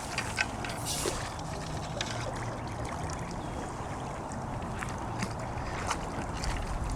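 Light splashing and trickling water from a small hooked carp being played in close to the bank, with a few brief sharp ticks.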